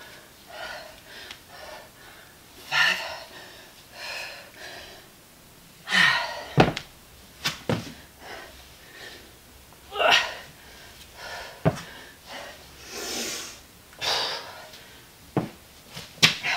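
A person breathing hard during a dumbbell workout, with gasping breaths every second or few, broken by a few sharp knocks.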